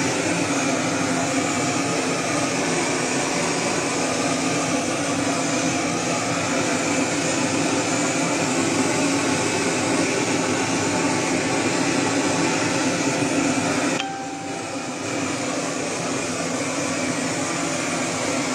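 Handheld gas blowtorch burning with a steady loud hiss as it singes the fur off a hanging dog carcass. The sound drops briefly about fourteen seconds in, then carries on slightly quieter.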